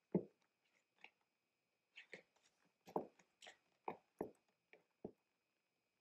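Nine West stiletto ankle boots with thin metal heels stepping on a hard floor: a string of about ten irregular heel clicks and taps, the loudest near the start and about three seconds in.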